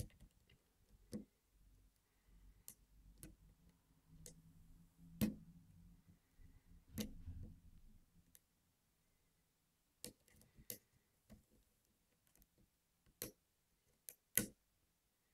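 Lock pick working the pins of a five-pin pin-tumbler lock under light tension: about ten faint, sharp clicks at irregular intervals, some of them the custom security pins setting at the shear line.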